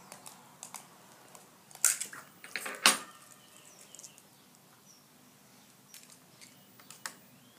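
A few sharp clicks and light taps from a cracked eggshell being pulled apart over a ceramic bowl, the loudest two about two and three seconds in. Fainter taps come near the end as the shell is set down on the table.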